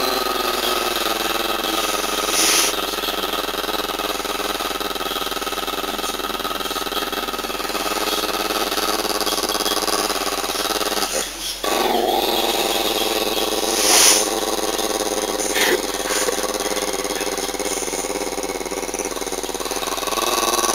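Small long-haired dog growling with its teeth bared: one long, steady growl that breaks off briefly about halfway and then carries on.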